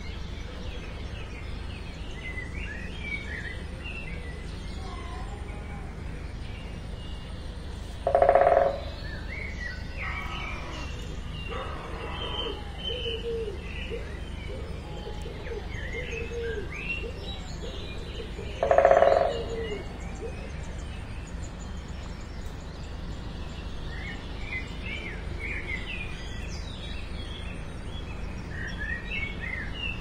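Small birds chirping and twittering in the background over a steady low rumble, with two brief, much louder low-pitched sounds about ten seconds apart.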